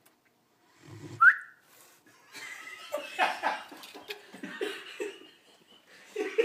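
Cane corso puppy snoring: one low rasping breath about a second in, ending in a short rising whistle. Then people laugh in uneven bursts.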